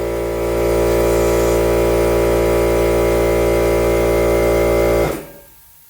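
Electric air compressor running with a steady, even hum, then shutting off about five seconds in, its sound dying away within half a second.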